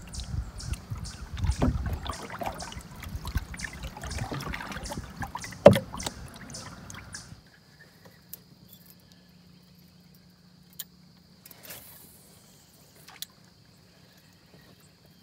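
Water rushing and slapping along the hull of an Old Town Discovery canoe under way, with a regular splashing about twice a second and one sharp knock about six seconds in. About seven seconds in it cuts to a quiet, still lake with a faint steady insect drone and a few small clicks.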